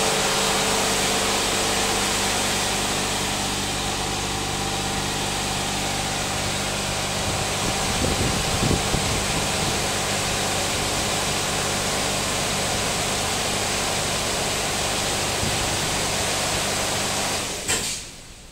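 Risense double-arm touchless car wash machine spraying high-pressure water over a car: a steady hiss of spray with a steady machine hum underneath. Near the end it cuts off abruptly with a brief clack.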